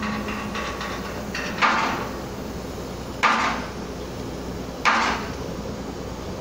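Three heavy hammer blows, about a second and a half apart, each with a short ring, over a steady low hum.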